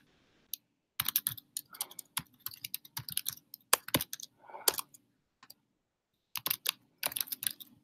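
Typing on a computer keyboard: a quick run of key clicks, a pause of under a second about five and a half seconds in, then more keystrokes.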